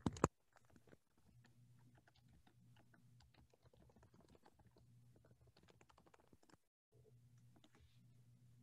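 Faint typing on a computer keyboard, a dense irregular run of small key clicks over a low steady hum, heard through a video-call microphone. There is one sharper click right at the start, and the call audio cuts out for a moment about two thirds of the way through.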